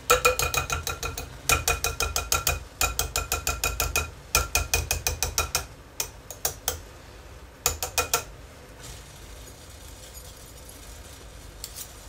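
A metal spoon tapping rapidly against a wire whisk in a glass bowl, in ringing clinks of about six a second in bursts of roughly a second, knocking off hot potassium-hydroxide soap paste. The paste is still partly firm and clings to the wires. The tapping thins out and stops about eight seconds in.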